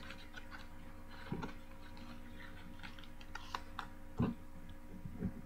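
Paper craft pieces being handled: light clicks and rustles of cardstock punch-outs being picked up and sorted, with a few soft thumps, the loudest about four seconds in.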